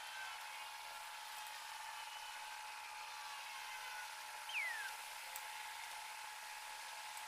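Steady hiss of a small gas-cartridge burner flame with a faint steady tone, used for softening and bending glass tubing. A short falling squeak about four and a half seconds in.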